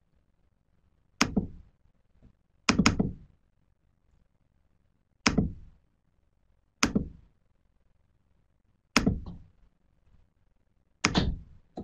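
Sharp clicks and knocks close to the microphone from the computer being worked: about seven at irregular intervals, a couple in quick pairs, each dying away within half a second.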